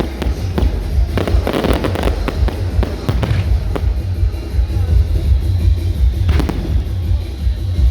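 Fireworks crackling and popping in repeated clusters, with thicker bursts about a second and a half, three seconds and six seconds in, over music with a heavy, constant bass.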